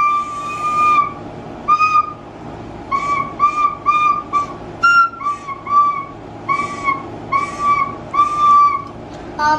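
Plastic soprano recorder being played: one long held note, then a string of about a dozen short separate notes, mostly on the same pitch, with one higher note about five seconds in.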